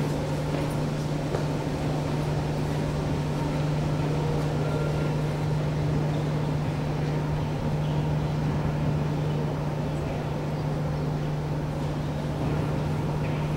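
Steady low hum under an even background noise in a gymnasium, with a few faint knocks from volleyball play.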